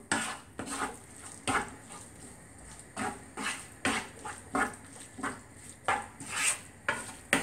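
A spatula scraping and knocking against a frying pan as tomatoes are stirred into the onion-masala, in a string of separate strokes about every half second to a second.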